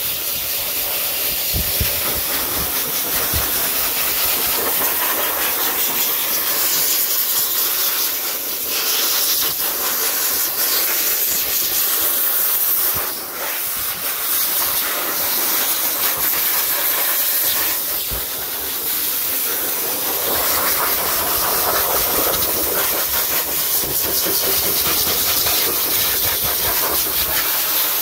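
High-velocity pet dryer blowing a steady, loud rush of air through its hose nozzle into a dog's coat, with a brief dip about 13 seconds in.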